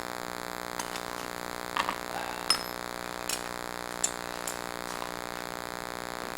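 Several sharp metallic clinks and taps of freshly cast copper coins and tools being handled, one ringing briefly, over a steady electrical hum.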